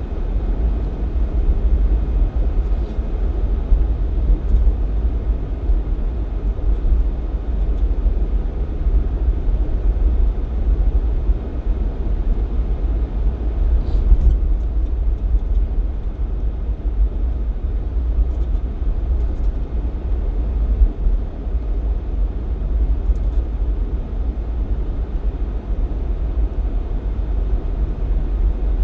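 Jeep XJ driving at steady speed, heard from inside the cabin: a continuous low rumble of engine and road noise, with a few faint ticks.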